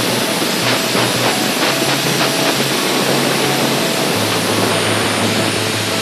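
Electronic dance music with a bass line that steps from note to note under a dense, hissing synth layer.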